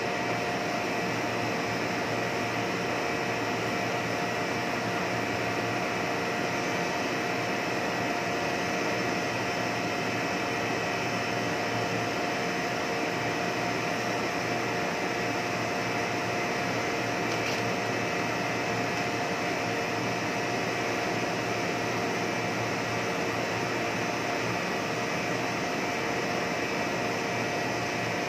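Blown-film plastic extrusion line running steadily: an even blower rush with a few constant whining tones from the machinery.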